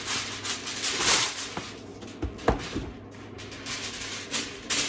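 Aluminium foil being pulled from its box and handled, crinkling and rustling in irregular bursts, with a sharp click about halfway through.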